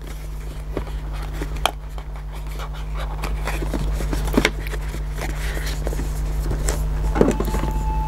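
A few light knocks and taps as a cardboard box is handled on a wooden table, over a steady low hum that slowly grows louder.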